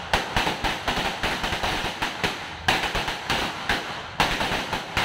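A sawa, a long belt of firecrackers, going off in a rapid, continuous run of bangs and crackles with no break.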